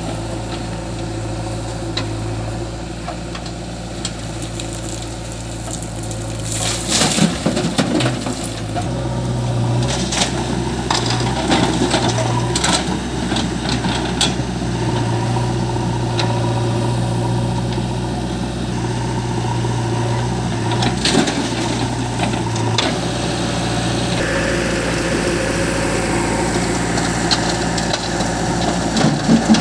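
Diesel engines of a JCB 3DX backhoe loader and tractor running steadily. Loads of earth and stones clatter into the steel tractor trailer in a burst of knocks from about a quarter to half way through, with a few more about two-thirds in.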